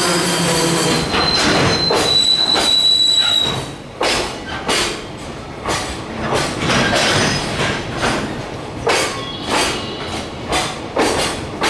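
Container wagons of a freight train rolling past, with a steady high squeal from the wheels that stops about three and a half seconds in. After that the wheels clack over the rail joints, the clacks often coming in pairs.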